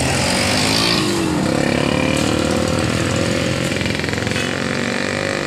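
A small motorcycle engine revs up about a second in, then holds a steady buzzing pitch as it passes close by.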